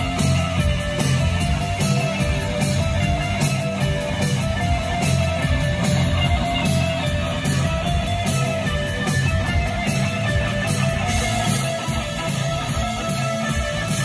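Live new-wave rock band playing through a concert PA, recorded from the crowd: electric guitar over keyboards and drums with a steady beat.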